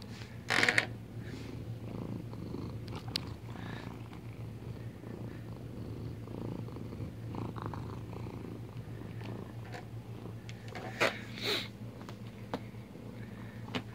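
Domestic cat purring steadily, close to the microphone, with a few brief scuffs: the loudest about half a second in and two more near eleven seconds.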